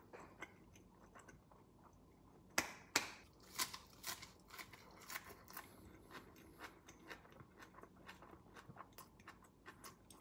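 Close-miked chewing of a mouthful of salted pollock roe and furikake rice: soft, wet mouth clicks, with a few sharper clicks about two and a half to four seconds in.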